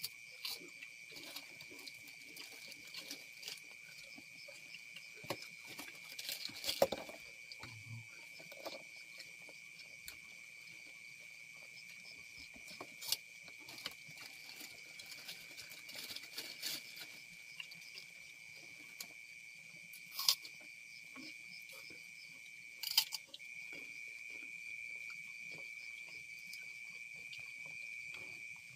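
Crickets trilling in one steady high tone, a little louder near the end, under soft clicks and rustles of hands picking at rice and crackers on banana leaves. Four sharper cracks stand out along the way.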